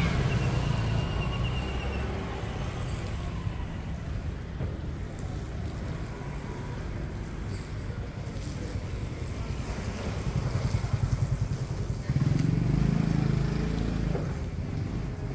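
Street traffic: motorbikes and cars running along the road, with one vehicle's engine passing close by about twelve seconds in.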